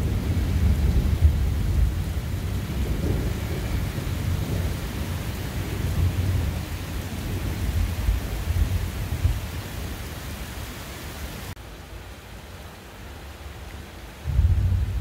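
Heavy rain pouring steadily under a thunderstorm, with a loud, uneven low rumble of thunder. About eleven seconds in, the sound drops abruptly to a quieter rain hiss, and a fresh low rumble surges in near the end.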